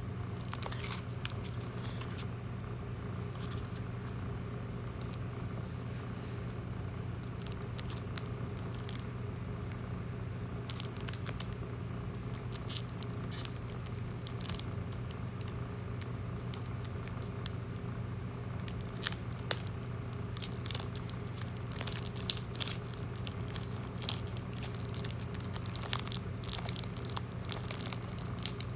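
Foil Pokémon card booster pack being torn open and its wrapper crinkled, heard as scattered crackles that come thicker in the second half, over a steady low hum.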